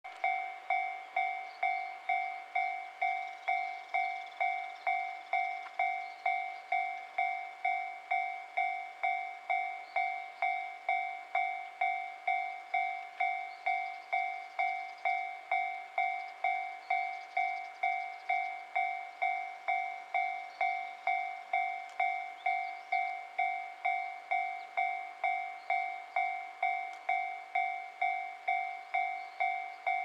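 Japanese level crossing warning bell ringing steadily, just under two strikes a second, each two-tone clang dying away quickly: the crossing is signalling an approaching train.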